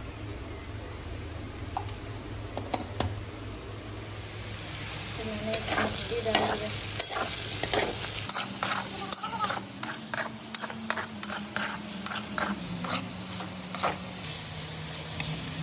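Potato slices sizzling as they fry in a steel wok, with a metal spatula scraping and clinking against the pan as they are stirred. The scrapes come thick and fast through the middle stretch and ease off near the end.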